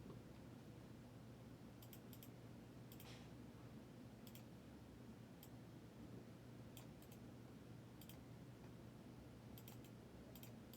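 Near silence: steady low room hum with about ten faint, sharp clicks at irregular intervals.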